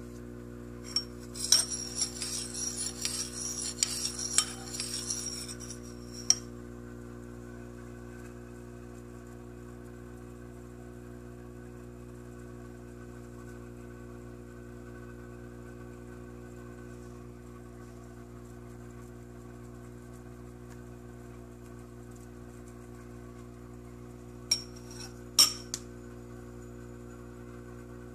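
Metal spoon stirring in a ceramic bowl of blended egg yolk, clinking rapidly against the bowl for about five seconds. A steady low hum follows, and a few sharp clinks come near the end.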